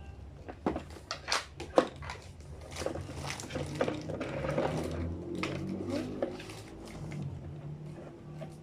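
Small plastic toy pieces being handled and fitted together: several sharp clicks and knocks in the first two seconds, then a busier stretch of clattering and rustling.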